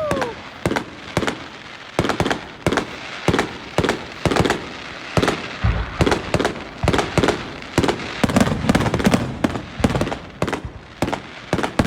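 Fireworks display going off non-stop: a steady run of sharp bangs and pops, about two a second, with a thicker stretch of crackling a little past the middle.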